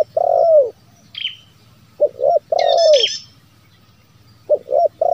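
Spotted dove cooing: a phrase of two short notes followed by a longer coo that bends down in pitch at its end, repeated about every two and a half seconds. Small birds chirp high above it now and then.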